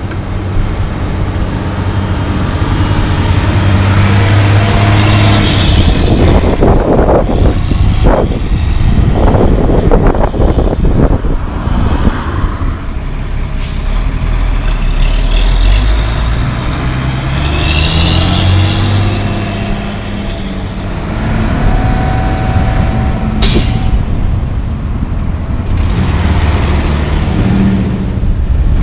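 International single-axle dump truck's diesel engine driving past, its pitch climbing in steps as it pulls away through the gears. Two short, sharp air-brake hisses, one about halfway through and one later.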